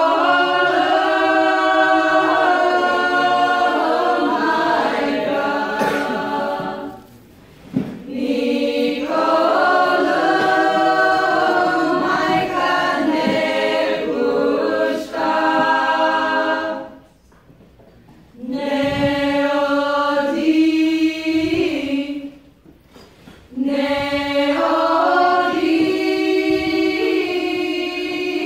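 Women's choir singing a Bulgarian folk song a cappella in close harmony. The singing comes in long phrases, with three short breaks between them.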